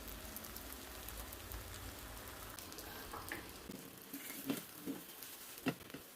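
Faint sizzling of seasoned beaten egg frying in a pan, with a few light clicks in the later seconds.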